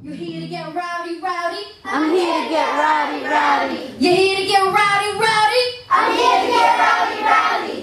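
Children singing together in three short phrases of about two seconds each. A music track's steady low note stops just under a second in.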